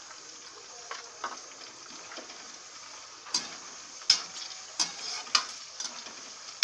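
Vegetables (cauliflower, carrot, peas, onion) sizzling in hot oil in a kadhai. From about three seconds in, a steel spatula stirring them scrapes and knocks against the pan several times, roughly once a second.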